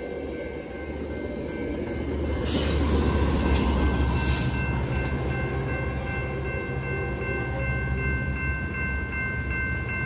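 Metrolink commuter train of bilevel coaches passing, with its diesel locomotive at the rear going by. The deep engine rumble grows loudest about three seconds in, together with a brief rushing hiss. Steady high tones hold from then on as the train moves away.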